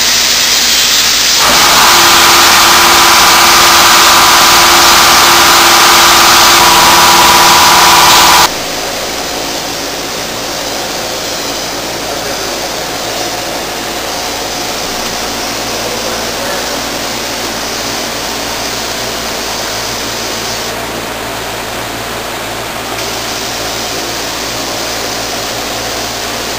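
Compressed-air gravity-feed paint spray gun hissing loudly as it sprays. After about eight seconds the sound drops abruptly to a quieter, steady hiss with a low hum.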